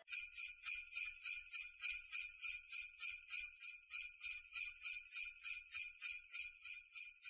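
Sleigh bells shaken in a steady, even rhythm, a little over three shakes a second, bright and high-pitched with nothing low beneath.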